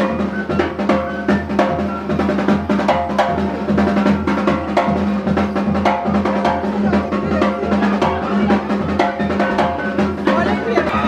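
Kittitian masquerade music: rapid, even snare and bass drum strokes, with a melody of short high notes over a steady low tone.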